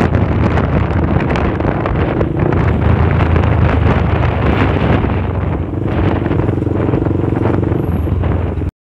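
Wind buffeting the microphone on a moving motorcycle, with the bike's engine running underneath; a steady engine hum comes up twice. The sound cuts off suddenly near the end.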